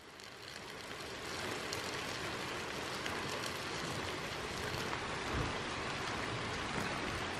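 A thin stream of water from a samovar tap pouring into a glass jar packed with shredded cabbage salad, a steady trickling splash. It grows over the first second, then holds even.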